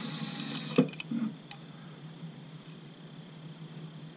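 A cordless power tool spinning briefly on a bolt at the engine's PTO housing, then stopping. About a second in comes a sharp metallic knock and a duller clunk as parts are handled. The rest is faint background.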